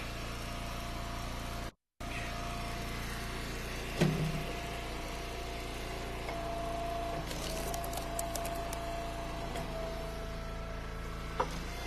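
Gas engine of an Eastonmade hydraulic log splitter running steadily. A knock comes about four seconds in as a hickory round is set on the beam. In the second half a higher steady tone rises from the machine, and a flurry of sharp cracks follows as the wedge drives through the round and splits it. The sound cuts out briefly early on.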